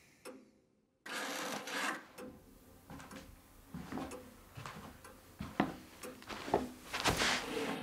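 Scraping and rubbing noise with several sharp knocks scattered through it, starting after about a second of silence.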